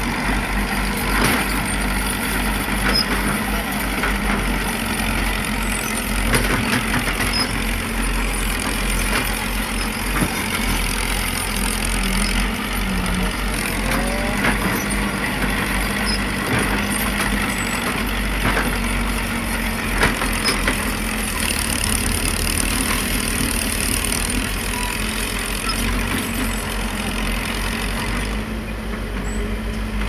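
Diesel engines of a Caterpillar 312C tracked excavator and a small bulldozer running steadily as they work soil, with scattered short knocks and clanks.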